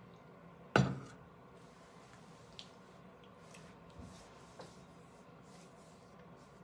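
An aluminium drink can set down with a single sharp knock about a second in, followed by a few faint clicks and rustles in a quiet room.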